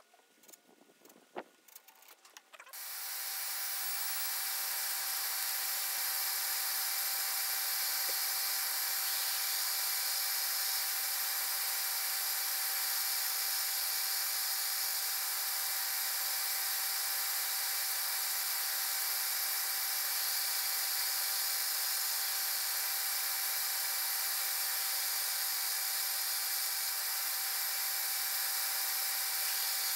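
Large disc sander running steadily with a segmented wooden ring pressed against the spinning sanding disc, starting about three seconds in after a few faint clicks.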